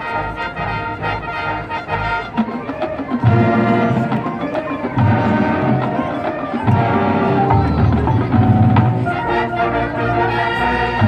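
Marching band playing, brass over percussion. The low brass and drums come in fuller and louder about three seconds in.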